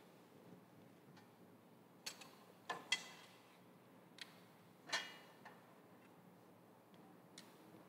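Metal tabernacle door and gold altar vessels being handled: a handful of sharp metallic clicks and clinks, the loudest about three and five seconds in with a short bright ring.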